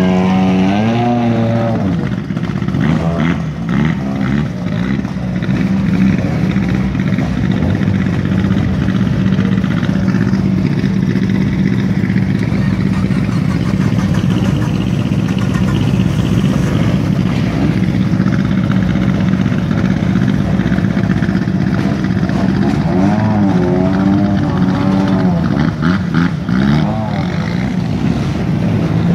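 Rally car engines running at idle in a queue, a steady low drone. The engine note rises and falls briefly near the start and again about 23 seconds in.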